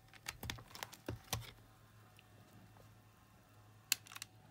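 Small clicks from the bare circuit board of a Sony WME23RL wired remote being handled while its repaired buttons are pressed to test them: a quick run of clicks in the first second and a half, then one sharper click near the end.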